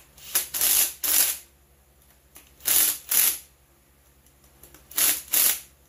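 Cordless drill/driver run in short bursts, three pairs of quick trigger pulls, driving the crankcase bolts into a McCulloch 10-10 chainsaw.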